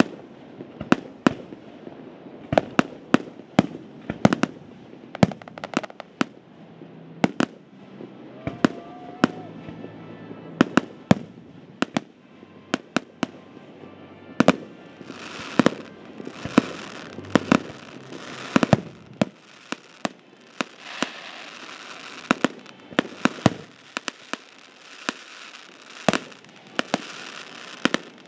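Fireworks display: aerial shells bursting in a steady run of sharp bangs, one or two a second. From about halfway through, a dense hissing rush of noise fills the gaps between the bangs.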